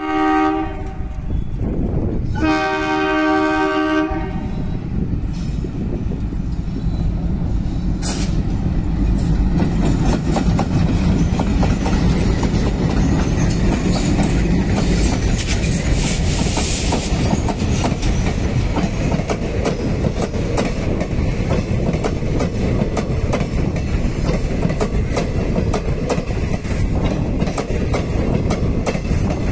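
Indian Railways diesel locomotive sounding its multi-tone horn twice, two blasts of under two seconds each. The locomotive and its passenger coaches then pass close by with a loud, steady rumble and the clickety-clack of wheels over rail joints.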